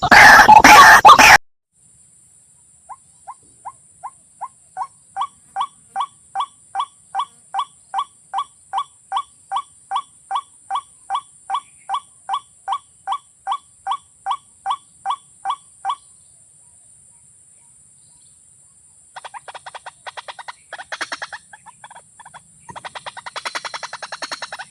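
A loud, harsh noise cuts off about a second in. Then a bird calls a long run of short, falling notes, about three a second, growing louder at first, and after a pause gives fast rattling chatter.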